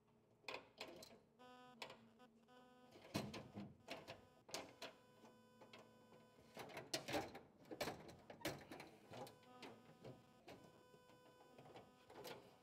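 A metal cabinet drawer being lined up and slid back onto its slides: irregular clicks, rattles and knocks of metal on metal, with louder clusters about three seconds in and again around seven to nine seconds.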